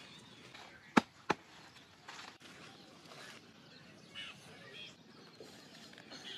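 Two sharp knocks about a third of a second apart, about a second in, then birds chirping now and then over a low outdoor background.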